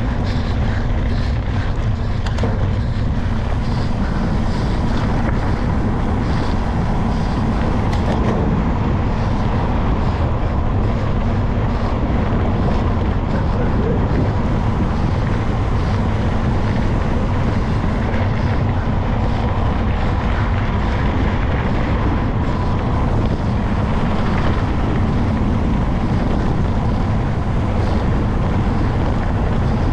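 Steady wind buffeting on the microphone with tyre rumble over loose gravel, from a camera on a bicycle being ridden along a dirt road.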